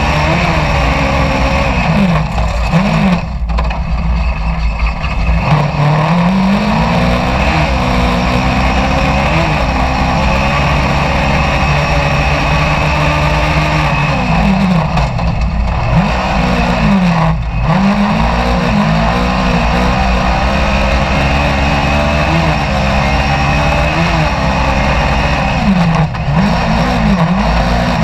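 Dirt-track racing car's engine heard from inside the cage at speed, revving up and dropping back again and again every couple of seconds as the driver accelerates and lifts off, over a heavy rumble of the car running over the dirt.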